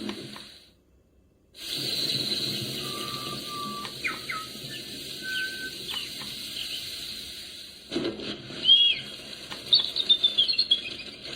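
Recorded birdsong nature track: short chirps and whistles over a steady hiss. It drops out briefly about a second in, resumes, shifts near eight seconds, and ends with a run of quick chirps.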